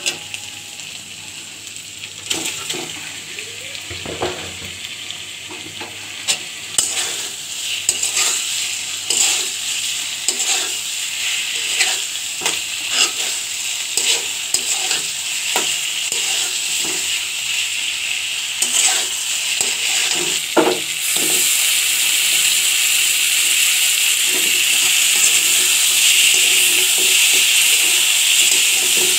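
Onion masala and snakehead fish frying in mustard oil in a metal wok, sizzling steadily while a metal spatula stirs and scrapes, with frequent clicks and scrapes against the pan. The sizzle grows louder and steadier about two-thirds of the way in.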